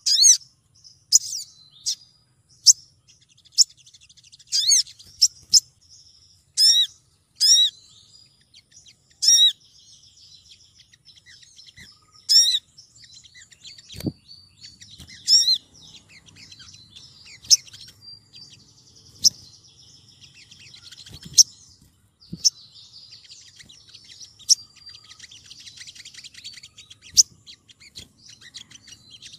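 Female olive-backed sunbird calling to attract males. It gives quick runs of sharp, high chirps and downslurred notes in the first half, then single chirps every couple of seconds over soft twittering.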